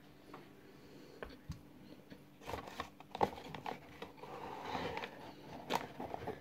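Mouth and straw sounds of someone eating dry cornflour through a paper straw: scattered clicks and crunches, with a short breathy suck a little after halfway.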